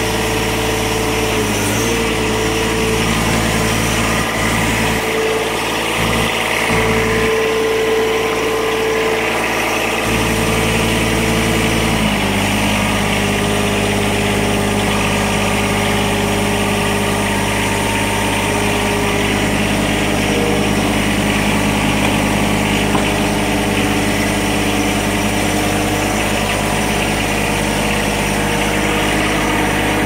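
John Deere compact tractor's three-cylinder diesel engine running steadily. About twelve seconds in, its note changes to a different steady pitch.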